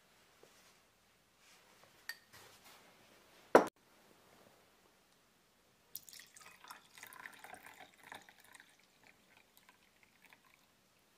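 A single sharp knock a few seconds in, then milk poured from a ceramic jug into a glass, splashing and gurgling for about four seconds as the glass fills.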